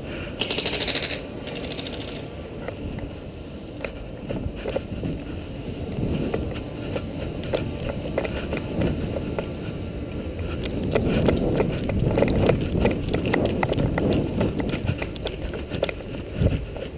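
Footsteps of a player on foot, with gear and the head-mounted camera jostling and knocking, irregularly and getting louder and busier about eleven seconds in. A short rattling burst comes about half a second in.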